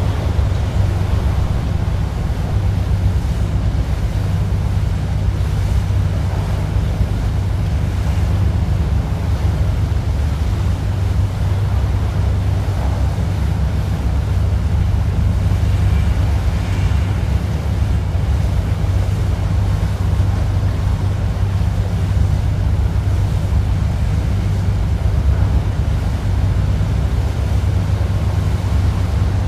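Steady low drone of a tour boat's engine, with water washing past the hull and wind on the microphone.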